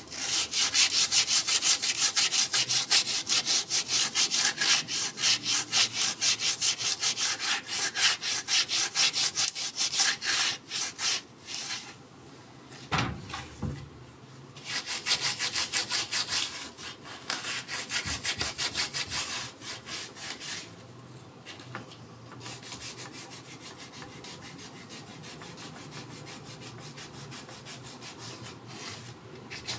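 Sandpaper rubbed by hand along a forest red gum didgeridoo in quick back-and-forth strokes. The sanding pauses briefly with a single knock about thirteen seconds in, resumes, and is softer and more even over the last third.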